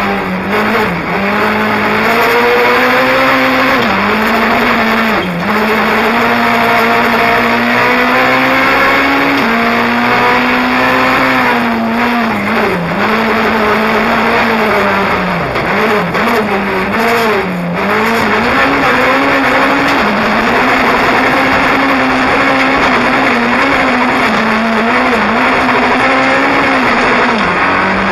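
Rally car engine heard from inside the cabin, running hard at high revs. The pitch dips briefly and recovers several times as the driver lifts off and changes gear, over steady tyre and road noise.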